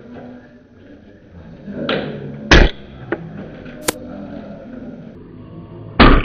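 Spring-powered bolt-action airsoft sniper rifle firing two loud shots about three and a half seconds apart, with sharp clicks of the bolt being worked in between.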